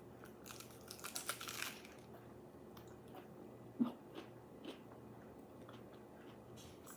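Biting into and chewing a lettuce-wrapped burger: crisp lettuce crunching in a burst about half a second in, then quieter chewing with small mouth clicks.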